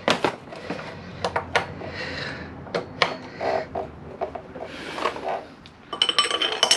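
Hand tools clinking and clicking on metal in scattered sharp knocks while a tight bolt that has just broken free is worked loose, with a quicker run of clicks near the end.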